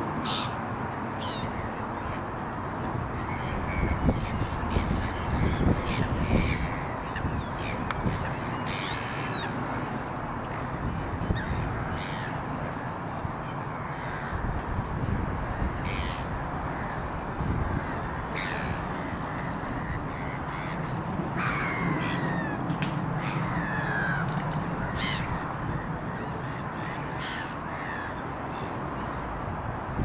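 Wild birds giving short, harsh calls at irregular intervals, a few falling in pitch, over steady outdoor background noise.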